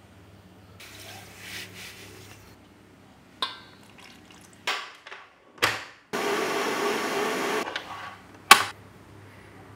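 Kitchen stand mixer whisking eggs and sugar in a stainless steel bowl in one steady burst of about a second and a half, between a few small clinks and knocks of utensils on the bowl. A single sharp knock comes near the end.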